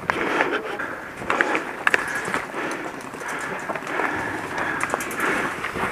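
Footsteps on gravel and the rustle of gear as an airsoft player moves, with a couple of sharp clicks.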